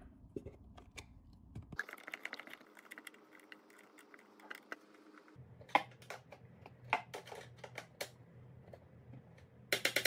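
Faint, irregular clicks and small scrapes of a hand screwdriver turning screws into an electronic cabinet lock fixed to a wooden board.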